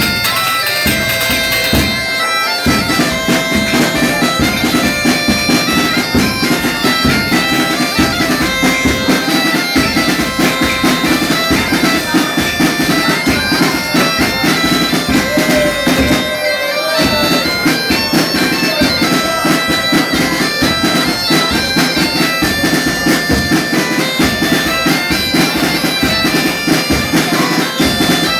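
Two Galician gaitas (bagpipes) playing a tune together, the chanters' melody stepping over the steady drone.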